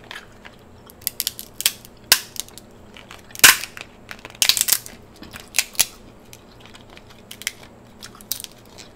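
Hand-held metal crab cracker crushing a king crab shell: a series of sharp cracks and crunches as the hard shell gives way, the loudest snap about three and a half seconds in and a quick cluster of cracks about a second later.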